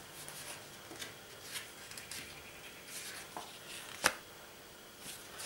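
Paper CD booklet being bent open and its pages turned by hand: faint rustling and soft paper taps, with one sharp click about four seconds in.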